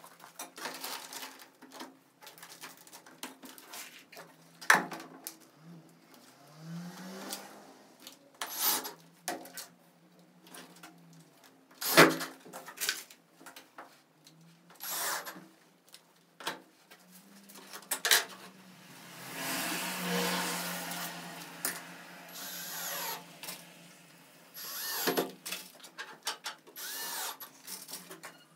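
Workshop work on a wooden build: a small power tool running in short spurts, its longest run about twenty seconds in, among sharp knocks and clatter, the loudest knock about twelve seconds in.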